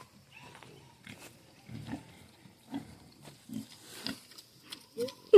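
Pigs eating, with short low grunts and chewing smacks about once or twice a second. A rooster starts crowing right at the end.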